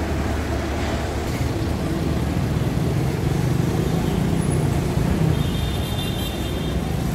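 City street traffic: cars running past, a steady low rumble of engines and tyres that swells for a few seconds in the middle.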